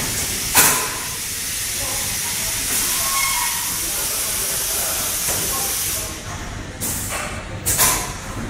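Pneumatic air on an automated LED aging test conveyor line: a steady hiss of air that stops about six seconds in, with short sharp bursts of venting air about half a second in and twice near the end.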